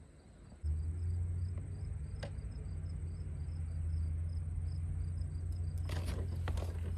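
A steady low rumble starts suddenly about half a second in and runs on. Behind it, insects chirp faintly in a regular rhythm, and a few clicks come near the end.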